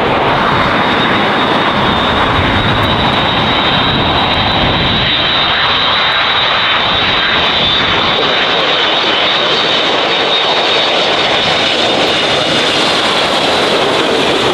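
Jet airliner engines running with a steady, loud roar and an even, high whine on top.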